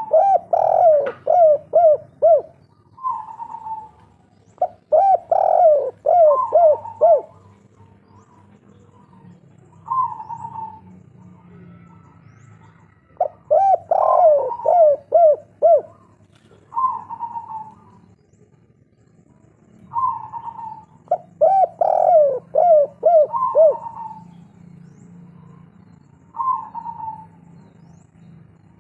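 Spotted dove (tekukur) singing its 'kuk 3' song: phrases of a coo followed by a quick run of four or five lower notes, repeated about every seven seconds, with single short coos in between.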